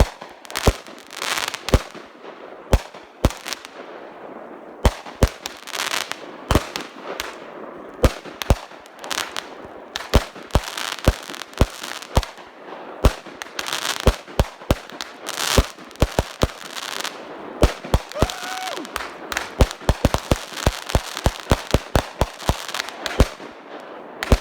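Consumer aerial fireworks going off in quick succession: sharp bangs, often several a second, with crackling in between, coming thicker in clusters toward the end.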